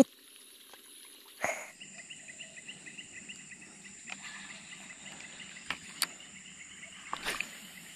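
Insects chirping: a steady high drone with a fast pulsing chirp that starts about a second and a half in. A loud sharp knock comes just as the chirping begins, and a few smaller clicks follow near the end, as a fishing rod and reel are handled.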